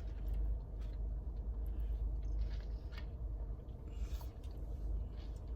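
A person chewing food close to the microphone, with a few soft clicks and crinkles, over a steady low hum inside a car.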